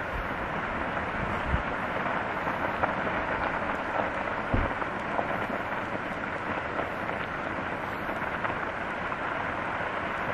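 Dry grass and brush burning in a hillside controlled burn: a steady, dense crackle like heavy rain, with a few sharper pops and a couple of low thumps in the first half.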